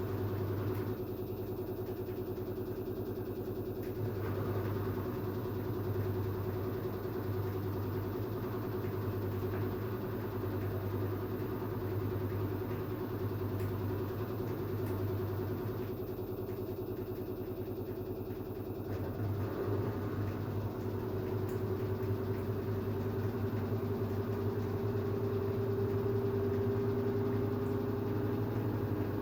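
LG FH4A8TDN2 front-loading washing machine running its spin cycle: a steady motor and drum hum with a gently pulsing low drone. Over the last ten seconds a tone rises slightly in pitch as the drum speeds up.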